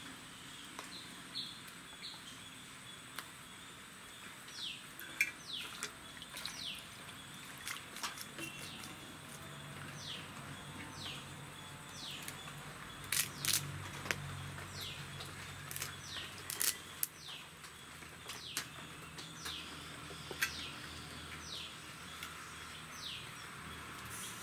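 A small bird calling over and over with short, falling high chirps, about one a second, starting a few seconds in. A few sharp clicks sound around the middle.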